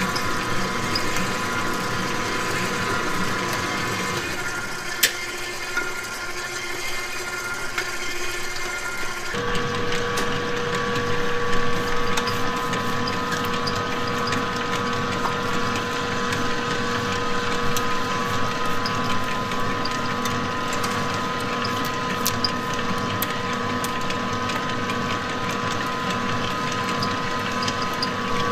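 KitchenAid Professional stand mixer running at speed, its wire whisk beating chocolate sponge batter in a steel bowl: a steady motor whine whose tone shifts once, about nine seconds in.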